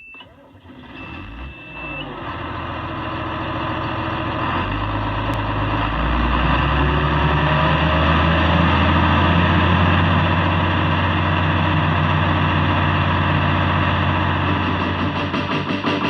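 A large farm machine's engine speeding up and then running steadily at high revs, after a short high electronic beep in the first couple of seconds. The engine grows louder over the first several seconds, jumps in level about five seconds in, and then holds.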